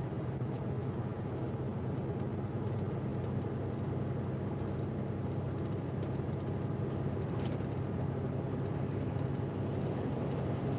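Steady low drone of a truck's diesel engine and tyre noise, heard from inside the cab while cruising on a motorway.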